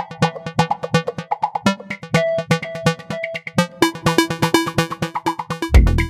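Electronic background music with a steady, rapid beat and synthesizer notes; a heavy bass comes in near the end.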